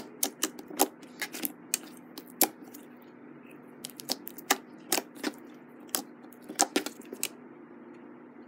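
Fingers kneading and pressing clear holographic glitter slime, making irregular sharp clicks and pops as air trapped in the slime is squeezed out. The clicks stop a little over a second before the end.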